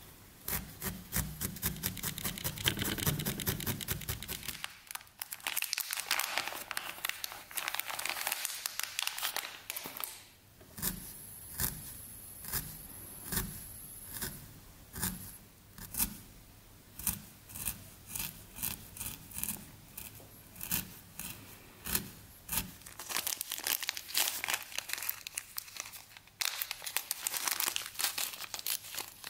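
A felting needle stabbing repeatedly into wool roving on a foam felting mat: a run of short scratchy pokes, quick and dense at first, spaced out to a little over one a second in the middle. Near the end a small plastic bag crinkles as it is handled.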